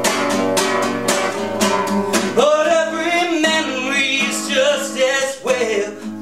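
Classical guitar strummed in a steady rhythm, joined about two and a half seconds in by a man's voice holding long, wavering sung notes.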